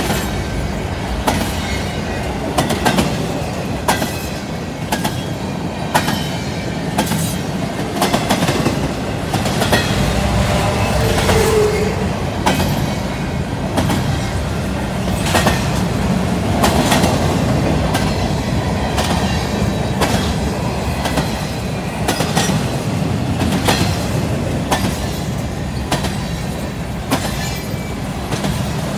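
Empty intermodal freight cars of a CN train rolling past at close range: a steady rumble of wheels on rail with irregular sharp clanks and clicks, and a brief squeal about eleven seconds in.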